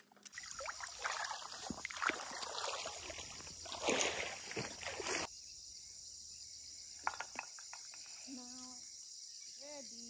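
Shallow river water flowing over stones: a rough, splashing rush for about the first five seconds, then a gentler flow after a cut. A steady high insect drone runs throughout.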